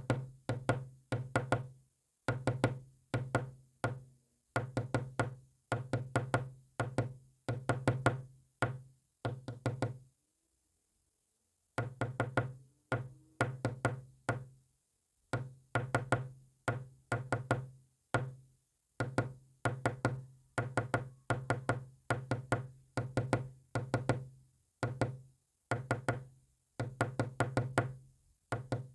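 Rapid knocks in short groups about a second long, separated by brief pauses, the rhythm of Morse code being sent. A silent stretch of about two seconds comes about a third of the way in.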